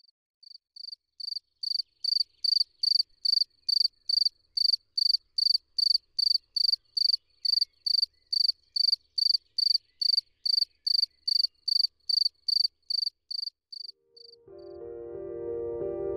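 Male field cricket (Gryllus campestris) giving its calling song, a steady run of short high chirps, about two and a half a second, that fades in and stops near the end. Soft piano music comes in just after.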